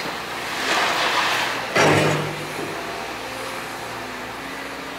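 Liebherr R926 compact excavator's diesel engine and hydraulics running steadily as the tiltrotator bucket scrapes down a soil slope. A scraping hiss builds about half a second in, then a louder rush of soil and stones comes just before two seconds and lasts under a second.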